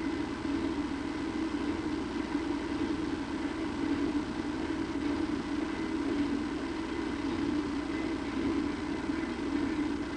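Steady low hum with faint steady tones higher up, unchanging throughout; no distinct events.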